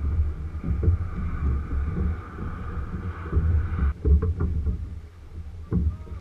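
Wind rumbling on the microphone of a camera mounted on a moving sculling boat, with water noise and a few knocks from the boat and oars. A steady higher hum in the background cuts off suddenly about four seconds in.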